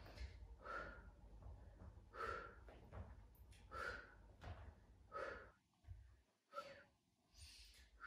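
A woman breathing hard in a steady rhythm while exercising, one short breath about every second and a half, in time with her repeated leg lifts.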